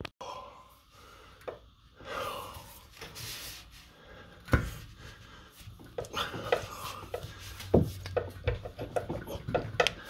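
Metal clicks and knocks from a BMW drive shaft being pushed and worked by hand to engage the differential pinion splines. Two louder knocks come, one about halfway through and one about three-quarters through, with a run of quicker clicks in the second half.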